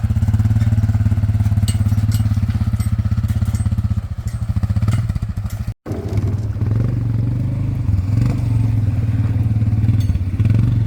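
An engine running steadily under load, with a strong low hum and a fast even pulse. It drops out for an instant about halfway through, then carries on much the same.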